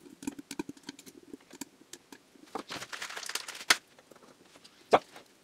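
Handling noise from a hand-built electrostatic tweeter panel on a wooden workbench: scattered light clicks, a rustling scrape about halfway through that ends in a sharp click, and a single knock near the end.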